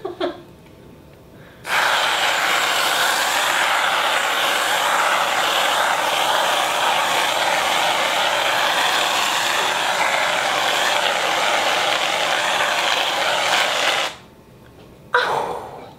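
Aerosol can of whipped cream spraying: one long steady hiss that starts about two seconds in and lasts about twelve seconds, with short squirts just before and near the end.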